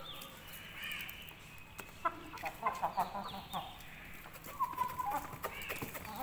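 Young Aseel chickens calling while they feed: high falling peeps near the start and end, a quick run of short clucks in the middle, and a longer held call soon after. Scattered light clicks come from beaks pecking grain in the bowl.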